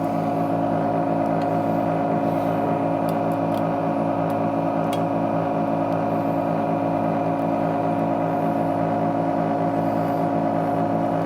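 Vacuum pump of a heated screen-separator machine running with a steady hum, holding the tablet down by suction, with a few faint ticks from handling.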